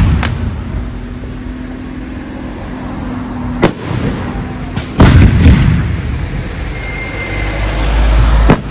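Aerial fireworks shells bursting in a professional display: sharp bangs a few seconds apart, the biggest about five seconds in, each followed by a rolling, echoing rumble.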